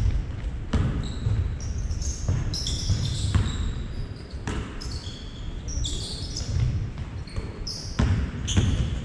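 Basketball being bounced on a hardwood gym floor at irregular intervals, mixed with many short, high-pitched squeaks of sneakers on the wooden floor as players run and cut.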